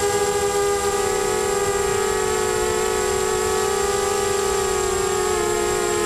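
Mini FPV quadcopter's four Emax MT1806 brushless motors spinning 5x3 propellers in flight, a steady whine heard from the onboard camera, its pitch wavering slightly with the throttle.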